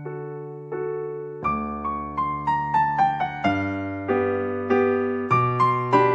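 Background piano music, gentle and unhurried, with low bass notes held under the melody and a short falling run of notes about two seconds in.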